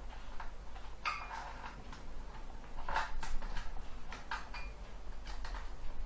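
Light clicks and rattles of a laptop's plastic parts and wires being handled while it is taken apart by hand, coming in a few short clusters.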